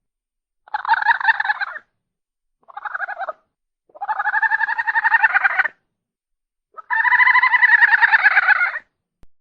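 Four loud, rapidly pulsing bird calls, each about half a second to two seconds long, with short silences between them.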